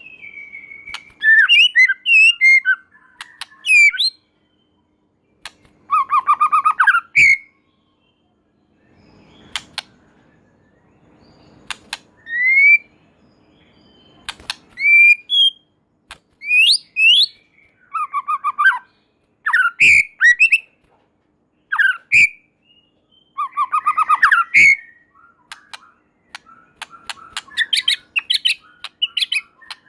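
White-rumped shama singing loudly: phrases of quick sweeping whistles, rapid buzzy trills and sharp clicks, separated by short pauses and coming thicker near the end.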